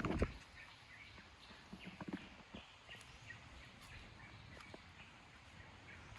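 Birds chirping faintly in the trees, with a loud bump right at the start and a few soft knocks scattered through.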